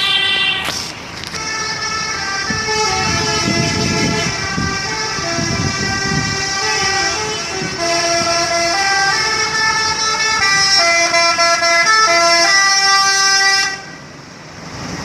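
Telolet multi-tone air horn on a Haryanto intercity bus playing a tune of stepped notes that jump from pitch to pitch. It stops sharply about a second before the end. For a few seconds in the middle a low rumble runs underneath it.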